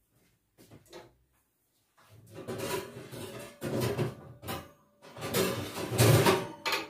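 Kitchen clatter of pans being handled, in two spells after about two seconds of quiet, loudest near the end.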